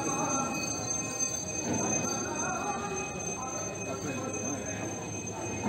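Several people's voices talking over a continuous background din.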